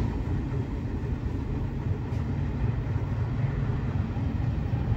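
New York City subway train giving a steady low rumble.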